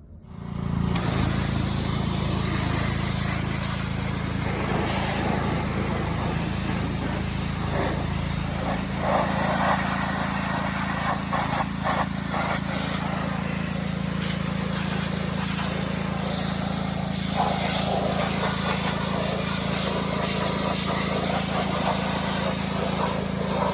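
Pressure washer running steadily, its motor droning at a constant pitch under the loud hiss of the water jet spraying, with brief spattering changes as the jet hits different surfaces.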